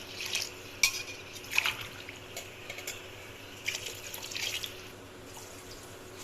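Water poured by the tumblerful into a pressure cooker of cooked vegetables, several separate pours with a few clinks of the tumbler against the pot. It is the cooking water being measured in for the rice, four tumblers in all.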